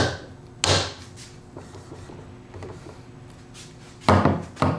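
Hard knocks and clacks on a foosball table: two at the start, then a quick cluster of loud knocks near the end.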